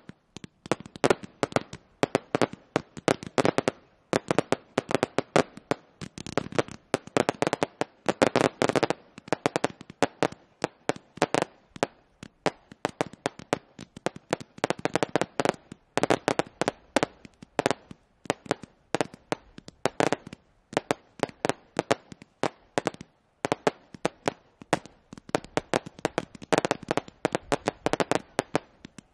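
Professional fireworks display: a rapid barrage of sharp bangs from aerial shells and comets being fired and bursting, many in a second, coming in waves that thicken and thin.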